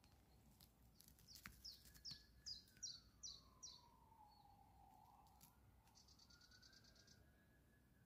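A songbird singing faintly: a run of about six quick, falling high notes that grow louder, then a short buzzy trill a few seconds later.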